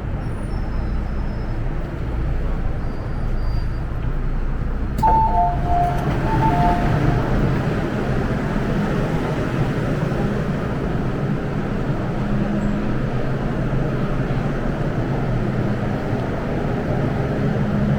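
Hong Kong MTR M-train running between stations, heard from inside the car: a steady rumble of wheels and traction motors with a low hum. About five seconds in there is a click and a short electronic tone of two alternating notes, played twice.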